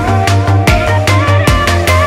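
Electronic background music with a heavy pulsing bass and a steady beat, with deep falling bass sweeps about every three quarters of a second.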